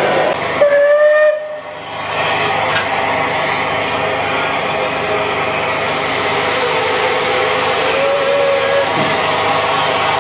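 Bulleid Battle of Britain class steam locomotive 34081 gives one short whistle about half a second in, over a loud steady hiss of escaping steam. A fainter whistle tone sounds later.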